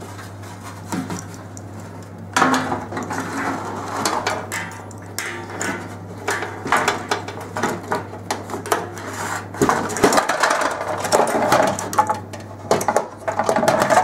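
Handling noise of a tumble dryer's heating element being worked free of its sheet-metal housing: metal and plastic parts clicking, scraping and rattling in quick irregular knocks, over a steady low hum.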